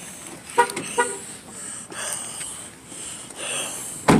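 A car horn gives two short toots about half a second apart, near the start. Near the end comes one loud thump, the loudest sound here.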